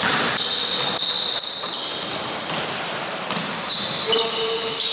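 A basketball is dribbled on a hardwood indoor court, the bounces coming again and again and echoing in the hall. Sneakers squeak high on the floor.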